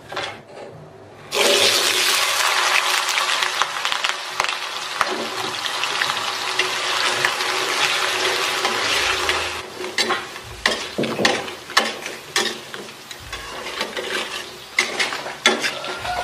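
Diced potatoes hitting hot oil in a wok a little over a second in, setting off a sudden loud sizzle of deep-frying that goes on steadily. In the second half the sizzle is lower, with repeated clicks and knocks of a metal spatula and slotted spoon against the wok.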